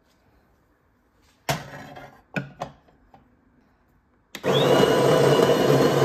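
A few short clattering knocks, then about four seconds in an electric motor starts up with a brief rising whine and runs steadily at a loud whir.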